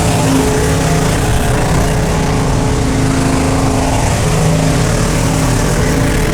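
V8 engine running loud at steady, held revs, its pitch shifting only slightly, with a constant hiss over it.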